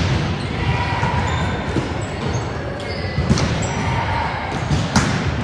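Volleyballs being struck and bouncing in a gymnasium, with sharp smacks at the start and about five seconds in over steady hall noise.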